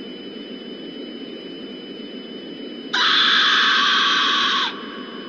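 Steady broadcast static, a hiss with two thin high whines. About three seconds in, a loud, harsh burst of noise cuts in abruptly, holds for under two seconds, then cuts off just as sharply.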